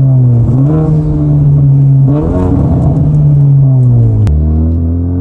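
Honda Civic Type R FK8's turbocharged 2.0-litre four-cylinder running through a Max Racing track exhaust. The engine note falls as the revs drop, jumps up in pitch twice, then drops suddenly with a sharp click about four seconds in and starts climbing again.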